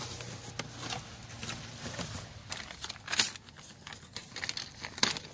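Clear plastic bag and cardboard box packaging crinkling and rustling as parts are handled and unwrapped, with a few sharper crackles.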